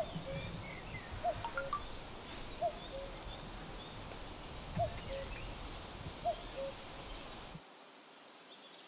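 A common cuckoo calling, its two-note call, higher then lower, repeated five times about every one and a half seconds, with small birds chirping faintly over outdoor ambience. The low background rumble drops away suddenly near the end.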